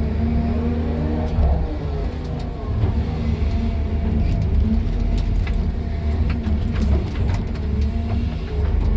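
Excavator's diesel engine running steadily, heard from inside the operator's cab as a low drone, with scattered sharp clicks and knocks in the second half.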